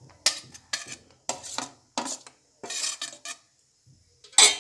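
A spoon knocking and scraping against a dish in a run of short clinks, as chopped vegetables are added to a mixing bowl; the loudest clink comes near the end.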